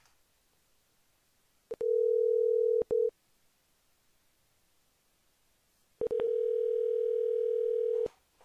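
Telephone line tone from the computer call: a steady single-pitch tone sounds for about a second and a half with a brief break, stops, then sounds again for about two seconds near the end.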